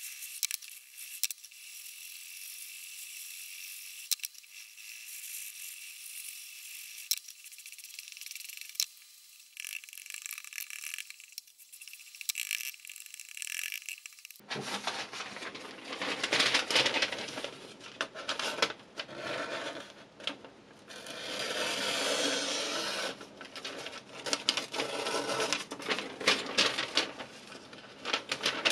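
A kitchen knife's steel edge being stroked along a 400-grit diamond sharpening stone: repeated rasping scrapes with small clicks. For about the first half the scraping is thin and hissy; then, after an abrupt change, it becomes fuller and louder, in strokes of a second or two.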